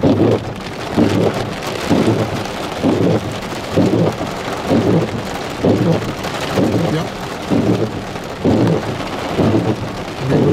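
Heavy rain hitting a vehicle's windshield and roof while the windshield wipers sweep back and forth, giving a regular swell about once a second over the steady rain noise.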